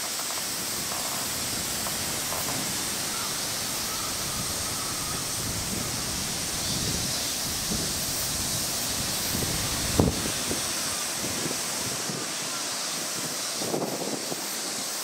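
Steady high-pitched outdoor hiss with wind rumbling on the microphone, and one sharp click about ten seconds in.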